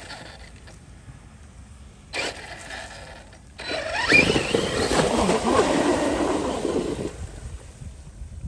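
Radio-controlled monster truck's electric motor giving a short burst about two seconds in, then whining up about three and a half seconds in as the truck races off the bank and its spinning tyres churn across the pond water for a few seconds before it eases off near the end.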